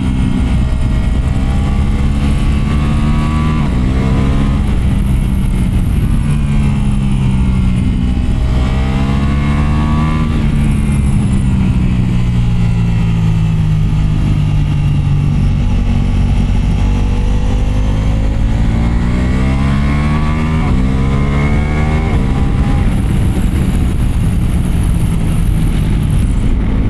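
Ducati Multistrada Pikes Peak motorcycle under way, its engine and exhaust note rising and falling in pitch several times as the rider opens and closes the throttle and shifts. A steady rush of wind and road noise runs underneath.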